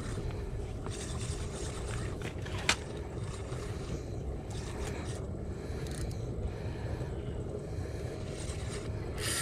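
Steady low rumble of wind and water around a small fishing boat, with one sharp click a little under three seconds in and a short high rasp at the very end.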